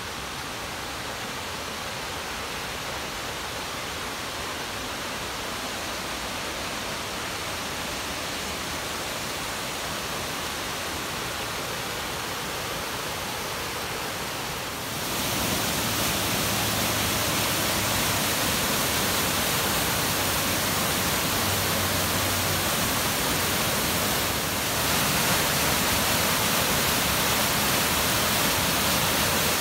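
Steady rushing water, an even full hiss with no breaks, growing slowly louder and stepping up in loudness about halfway through and again later on.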